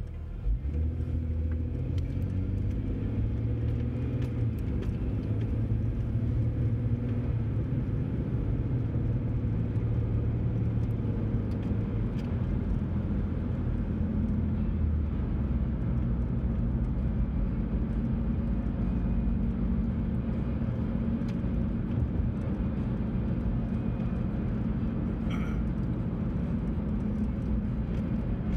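Car engine and tyre noise heard from inside the cabin as the car pulls away from a stop and drives at steady speed, a continuous low rumble with a hum that shifts in pitch.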